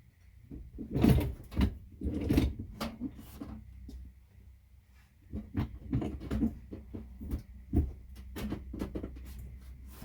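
Irregular knocks and clunks of chimney pipe sections being handled and fitted, loudest about a second and two and a half seconds in, with another run of smaller knocks in the second half.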